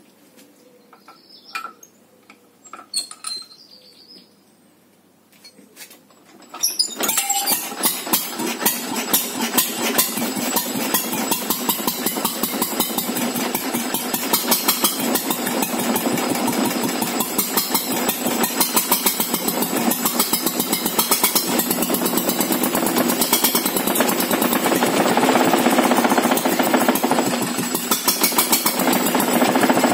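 A few light clinks, then about seven seconds in the Vialis stationary engine starts on the first turn of its starting crank and runs steadily with a rapid, even firing beat.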